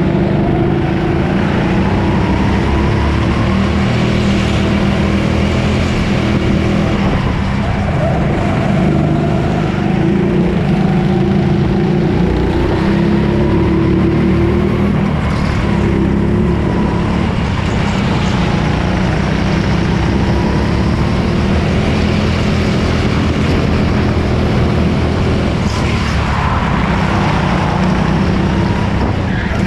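Go-kart motor running hard and continuously, its pitch wavering a little as the kart is driven through corners.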